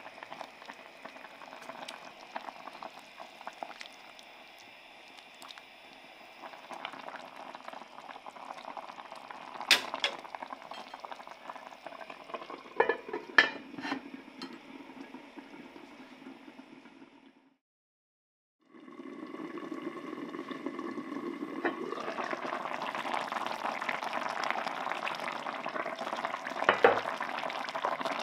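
Pork neck pieces simmering in broth in an enamelled cast-iron pot: steady bubbling, with a wooden spatula stirring and a few sharp clinks as the heavy lid goes on. The sound drops out for about a second, then the bubbling comes back louder, with another knock near the end.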